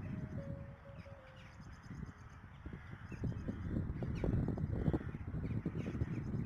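A large flock of corvids cawing overhead, many short calls overlapping and growing denser about halfway through. The last held notes of a piano piece fade out in the first second.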